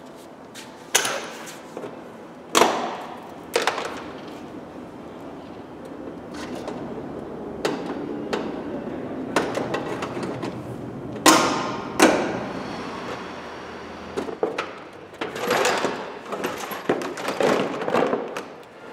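Hand work at a car's bare front wheel arch, with no power tools: a few sharp knocks in the first seconds and two strong ones around the middle. Near the end comes a run of plastic rattling and scraping as the Peugeot 208's plastic wheel arch liner is worked loose and pulled out.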